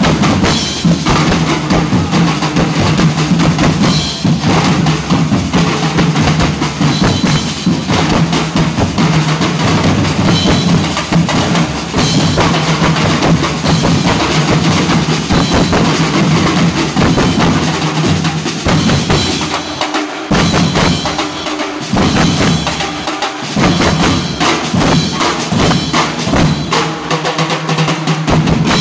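Ati-atihan drum corps playing a loud, dense rhythm on stainless-steel bass drums, snare-type drums, a set of small tom drums and a cymbal. The low drums drop out in a few short breaks about two-thirds of the way through, then the full groove comes back.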